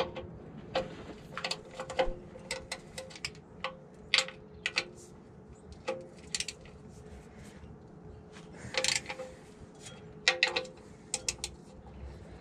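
Hand tools working on metal under a truck while the bell housing cover is being taken off: irregular sharp clicks and clinks, some in quick clusters, over a faint steady hum.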